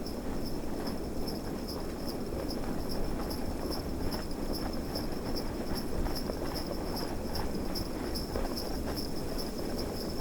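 Sleigh bells jingling in a steady rhythm, about four or five shakes a second, as of a horse-drawn sleigh, over the continuous rush of snowstorm wind.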